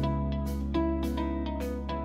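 Instrumental background music: plucked guitar over held bass notes, with a steady beat about twice a second.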